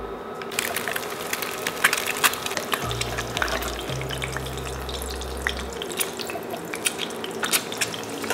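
Peeled quail eggs frying in hot oil in a stainless steel pan, a dense sizzle full of sharp pops and spits that starts suddenly about half a second in.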